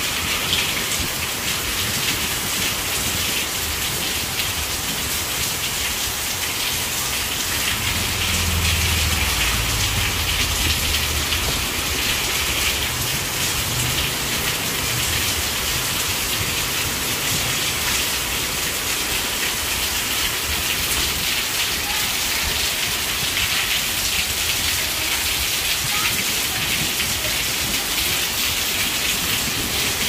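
Steady rain falling, an even hiss of drops on water and hard ground. A low rumble swells in about eight seconds in and fades out several seconds later.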